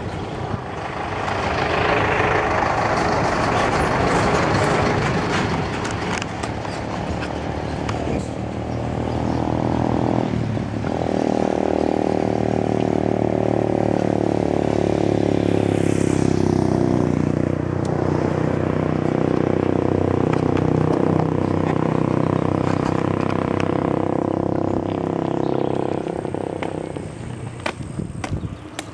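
Wind and road noise rushing over the microphone of a moving bicycle, then a motor vehicle's engine droning close by for most of the rest, a steady note that sags and recovers around the middle before fading near the end.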